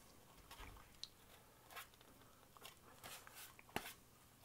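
Faint clicks and taps of a hand-held ABS plastic enclosure being turned over and gripped, with one sharper click late on.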